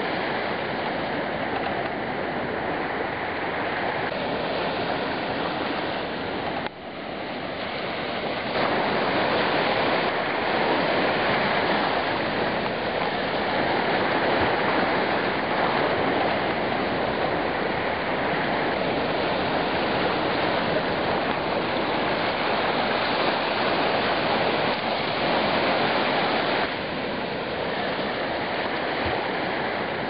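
Sea surf washing onto a sandy beach: small waves breaking and running up the shore in a continuous rushing noise, with a brief sharp dip about seven seconds in.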